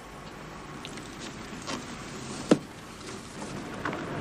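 Quiet ambience inside a parked car: a low steady background hum with a few faint ticks and one sharp click about two and a half seconds in.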